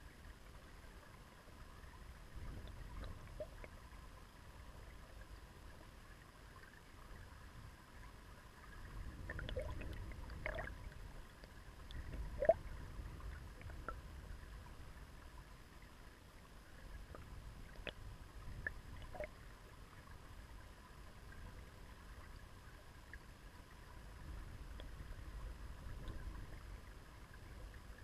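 Shallow river current heard underwater over a pebbly bed: a faint low wash that swells and fades every few seconds, with scattered small clicks and pops.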